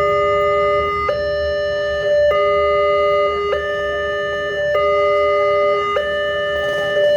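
Railway level-crossing warning siren sounding a repeating two-tone alarm. Two steady tones alternate with abrupt switches, the pattern cycling about every 1.2 seconds.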